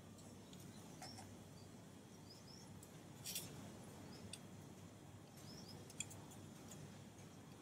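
Near silence: faint room tone with a few soft clicks, one about three seconds in and a sharper one about six seconds in, and a few faint high chirps.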